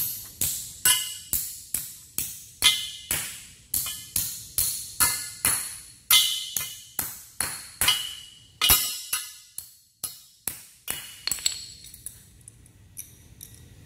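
A hammer striking the head of a steel wedge anchor bolt, driving it down into a drilled hole in concrete through a post's base plate: steady ringing metal-on-metal blows, about two a second, that stop about two seconds before the end. A few faint metal clinks follow.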